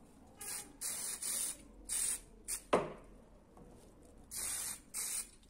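Anticorrosion paint being sprayed onto metal lamp parts in about eight short hissing bursts. About halfway through there is a sharp click that drops in pitch.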